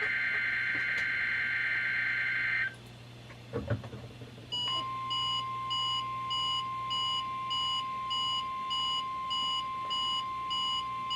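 NOAA Weather Radio SAME digital header for a Required Weekly Test: a harsh, warbling data burst that stops about two and a half seconds in. After a short gap with a few soft knocks, a steady alert tone near 1 kHz starts, with a higher electronic beep pulsing about one and a half times a second over it.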